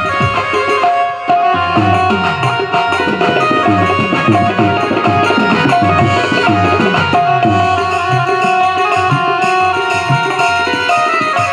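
Instrumental interlude of a devotional bhajan: tabla playing a busy rhythm, its bass drum bending in pitch, over held melody notes.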